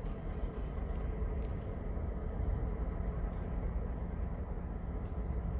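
Low, steady rumble of a distant GE ES40DC diesel-electric locomotive running, with a faint steady tone above it.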